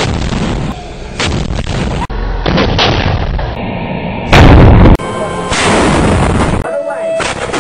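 Gunfire and heavier blasts from combat recordings, spliced together with several abrupt cuts; the loudest blast comes a little over halfway through.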